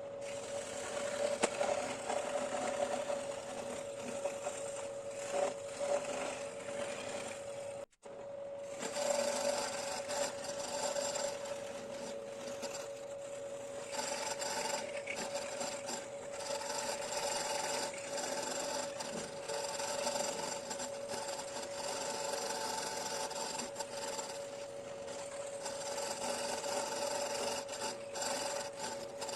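A carving tool rasping and grinding into ash wood, with a steady whine under the scraping. The sound cuts out briefly about eight seconds in, then carries on.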